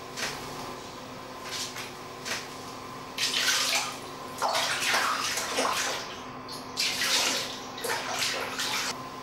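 Water splashing and sloshing in a shallow basin as a small child is washed by hand, in several bursts, the biggest about three, five and seven seconds in, over a faint steady hum.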